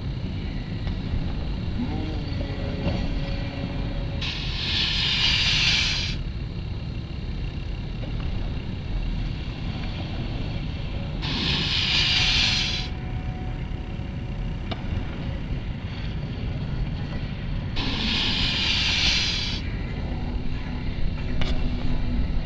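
Snowboards sliding down a plastic-matted kicker ramp: three bursts of hiss, each about a second and a half, about four, eleven and eighteen seconds in, over a steady low rumble.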